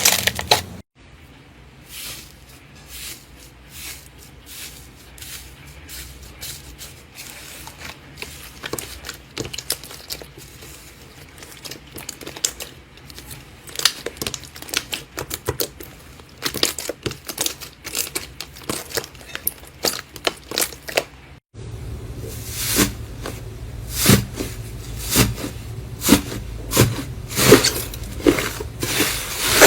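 Slime being squeezed and poked by hand, a dense run of sticky clicks and crackling pops. The sound changes abruptly about a second in and again about two-thirds of the way through, growing louder and busier in the last part.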